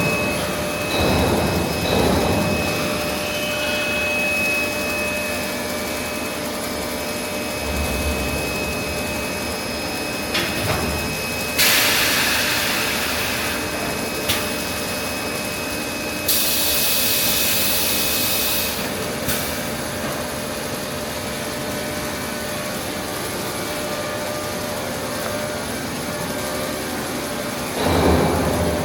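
Air bubble film extrusion line running: a steady mechanical drone with faint steady whines, broken near the middle by two loud bursts of hissing, each lasting about two seconds.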